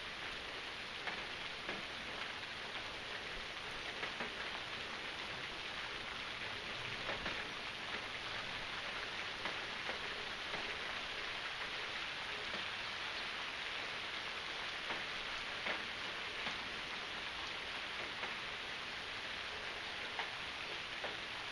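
Steady rain falling, an even hiss with scattered sharper drops ticking through it.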